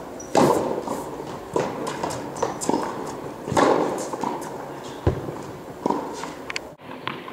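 Tennis rally on an indoor court: sharp racket hits and ball bounces about once a second, each with a reverberant echo from the hall, over footsteps on the court. The sound breaks off abruptly near the end.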